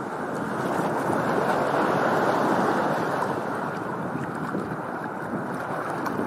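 A steady, muffled rushing noise like surf, swelling over the first two seconds and then holding.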